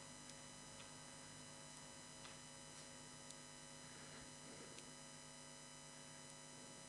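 Near silence: a steady electrical mains hum, with a few faint clicks.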